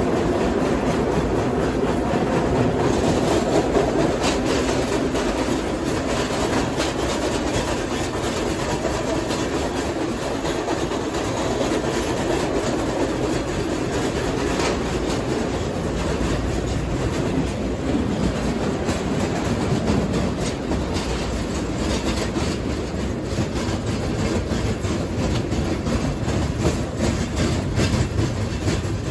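Vintage R1/9 subway cars running through a tunnel, heard at the car's end door by the gap between cars: a steady, loud rumble of wheels on rail with frequent clicks over the rail joints.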